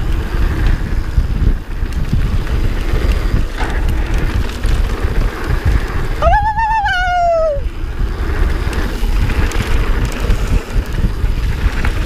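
Wind buffeting the microphone and tyres rumbling over a dirt trail on a fast mountain bike descent. A little past the middle, a wavering high-pitched tone rises and then falls, lasting about a second and a half.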